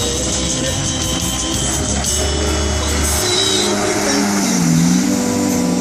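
Music playing, with a heavy bass that drops out about three seconds in while the higher melodic parts carry on.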